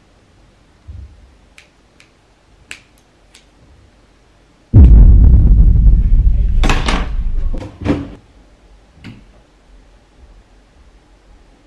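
A few faint sharp snips of small scissors, then a sudden loud rumbling and rustling right at the microphone for about three seconds as someone moves close past it, ending in a few sharp knocks.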